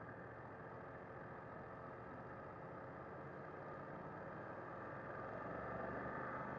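Muffled running of a BMW F 900 R's parallel-twin engine under way, mixed with wind and road noise, growing a little louder near the end as the bike gathers speed.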